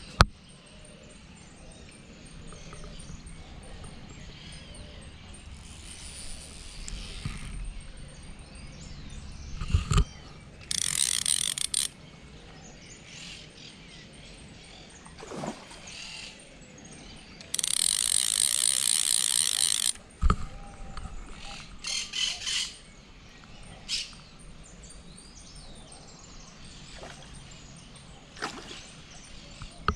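Fishing reel's drag clicking rapidly as line is pulled off the spool, in two bursts of about one and two and a half seconds: a hooked carp taking line. A few sharp knocks come between the bursts.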